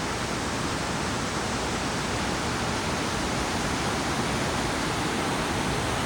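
Steady rush of falling water from a waterfall, Kepler Cascades on the Firehole River.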